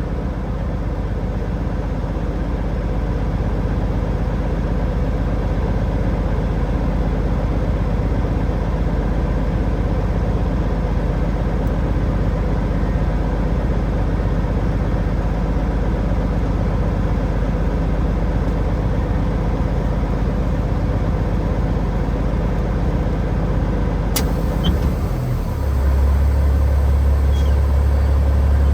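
Semi truck's diesel engine running steadily, heard from the cab. Near the end there is a sharp click, and then a louder, deeper steady rumble.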